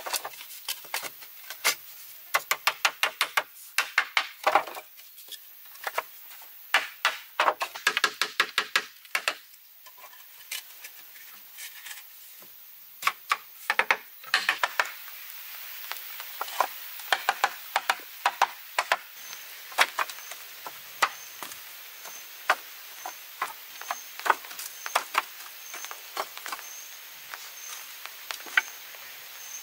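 Hollow bamboo pieces clacking and knocking against each other and on a bamboo-pole floor as they are handled and laid. Quick runs of short ringing knocks come in the first half, and sparser single knocks follow later.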